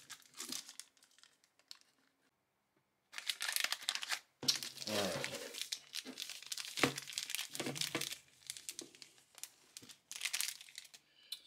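Clear plastic zip-lock bag crinkling and rustling in irregular bursts as a phone is worked out of it, starting about three seconds in.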